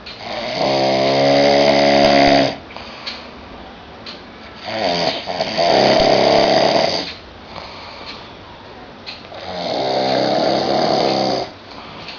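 A sleeping person snoring loudly: three long snores of about two seconds each, roughly four and a half seconds apart, each a steady buzzing tone. The family puts the snoring down to enlarged nasal turbinates ('carne esponjosa').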